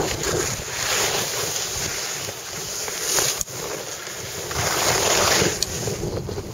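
Wind buffeting the microphone of a camera carried by a downhill skier, a steady low rumble, with the hiss of skis sliding on snow swelling and fading every second or two.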